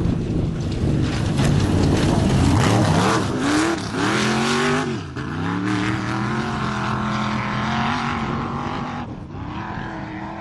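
Off-road race vehicle going by at speed: a loud rush at first, then its engine revving up, the pitch dropping sharply about five seconds in before climbing again at high revs and fading near the end.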